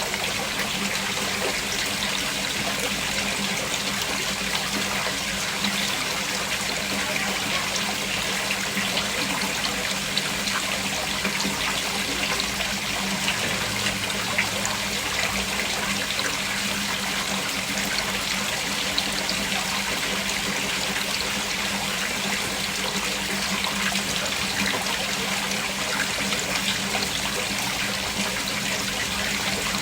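Water from a small artificial pond waterfall splashing and trickling steadily into the pool below, an even rushing patter with no breaks.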